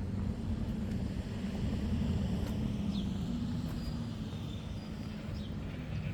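A motor vehicle's engine running close by, a steady low rumble, with a few faint high chirps over it.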